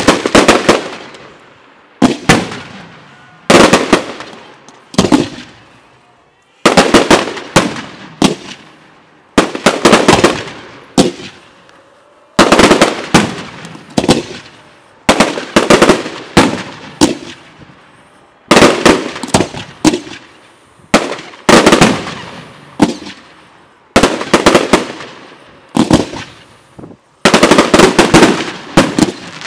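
Aerial fireworks display: volleys of shell bursts, several sharp bangs in quick succession every second or two, each volley followed by a fading echo. The bangs come thickest near the end.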